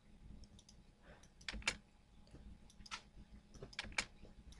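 Faint, scattered clicks of a computer mouse and keyboard, including a close pair of clicks about one and a half seconds in, as objects are picked and erased in CAD software.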